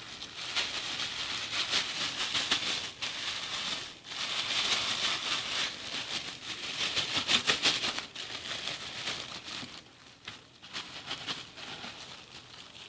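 Plastic packaging crinkling and rustling as chicken is worked in crushed crackers, with quick crackles; busiest for the first eight seconds or so, then quieter.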